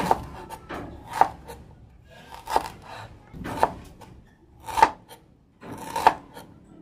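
Kitchen knife slicing ginger on a cutting board: a sharp cut a little more often than once a second, with lighter knocks in between.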